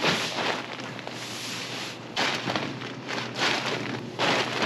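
Nylon sleeping bags rustling in several bursts as they are shaken out and spread over an air mattress.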